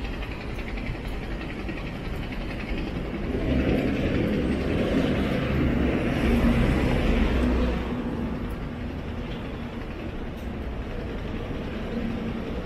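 Street traffic noise with a vehicle passing close: a low rumble swells about three seconds in, holds for around four seconds, then drops off fairly quickly, over a steady background of city noise.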